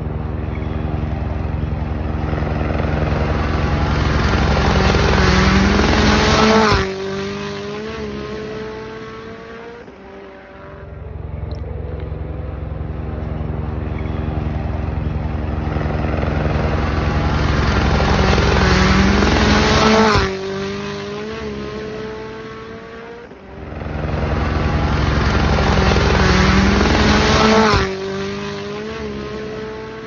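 Three rally cars passing flat out, one after another. Each engine grows louder as it approaches, drops sharply in pitch and loudness as it goes by, then fades with gear changes. The first pass comes about a quarter of the way in; the other two come about eight seconds apart in the second half.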